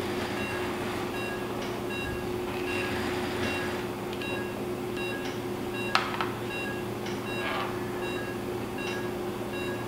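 Patient monitor's pulse-oximeter tone beeping at a regular pace over the steady hum of theatre equipment. A sharp click about six seconds in and a brief rustle a little later.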